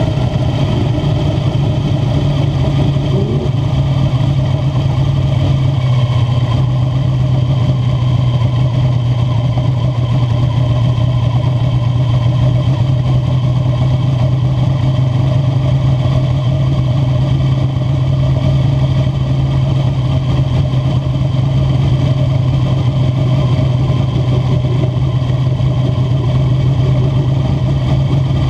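Wingless spec sprint car's engine running at a steady pitch, heard from the cockpit, with little rise or fall in revs.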